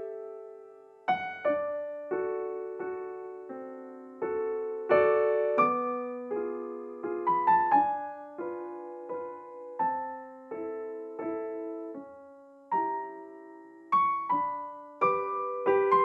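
Background piano music: a slow, gentle melody of single notes and chords, each struck note fading away before the next.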